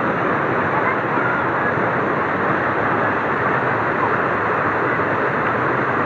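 River water rushing steadily in white water along a concrete embankment, a constant loud wash.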